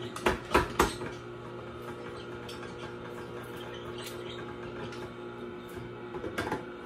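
Tribest Green Star Elite twin-gear juicer running with a steady low hum. There are a few sharp knocks in the first second and another near the end.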